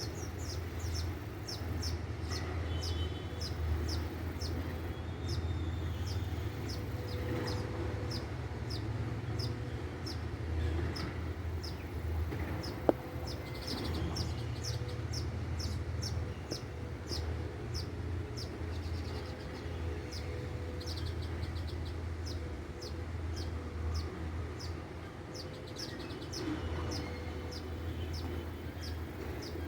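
A bird calling with a short, high, falling chirp repeated steadily about two to three times a second, over a low steady rumble. A single sharp click about 13 seconds in.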